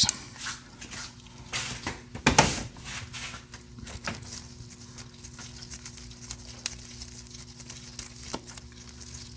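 Scraping, clicking and crinkling of hand-tool work: a screwdriver turning and prying a broken, seized plastic bleed screw out of a supercharger bleed port, with gloved hands rustling, the loudest scrapes about one and a half and two and a half seconds in. A faint steady hum runs underneath.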